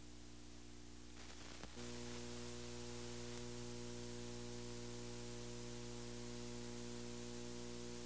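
Steady electrical hum made of several pitches, under a layer of hiss, that gets a little louder just under two seconds in with a faint click. No tool sound stands out.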